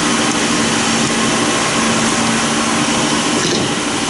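Steady machine hum with a constant low tone and an even hiss over it, running unchanged throughout.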